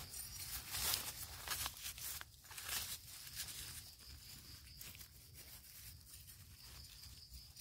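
Dry leaf litter and grass rustling and crackling as a hand pushes through it, in short bursts over the first three seconds, then softer.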